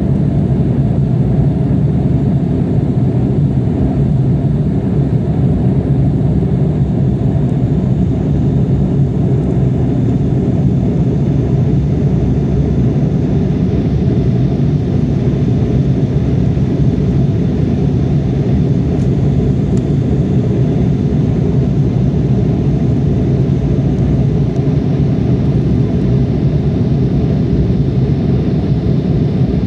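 Steady cabin noise of an Embraer regional jet climbing after takeoff, heard from a window seat inside the cabin: a constant low rumble of the turbofan engines and the rushing air, with no change in level.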